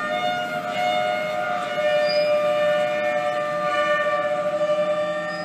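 Steel wheels of slow-rolling covered hopper cars squealing against the rails, several high steady tones overlapping and changing as the cars pass.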